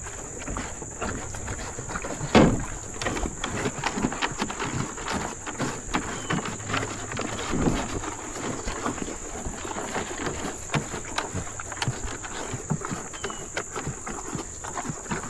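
Cattle feeding at a trough: irregular knocks, clicks and shuffling, with one louder thump about two seconds in and another near the middle.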